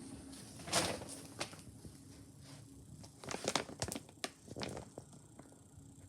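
Soft rustling and crinkling with a few light clicks and taps, scattered, bunched together a little past the middle.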